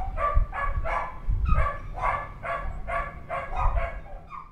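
Shelter dogs barking over and over, about two to three barks a second, with low rumbles now and then underneath.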